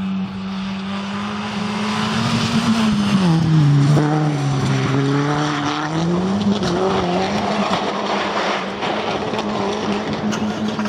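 Rally car engine held at steady revs, with tyre and gravel noise; about three seconds in the revs drop for a few seconds, then climb back and hold steady again.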